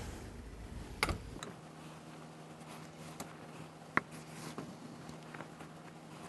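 Steam iron worked over the fur hem of a mink vest: faint rubbing and handling of fur and fabric, with two sharp light knocks about one and four seconds in. A low rumble stops just after the first knock, leaving a steady low hum.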